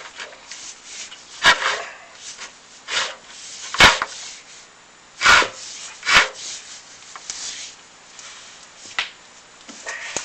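Irregular scrapes and sharp knocks, a few of them loud, from a chimney inspection camera rubbing and bumping against the flue walls as it is worked down the flue.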